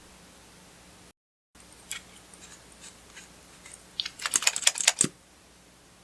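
Clear slime being pressed and worked by hand, giving scattered small clicks and then a quick run of sharp clicking, popping crackles from trapped air about four seconds in.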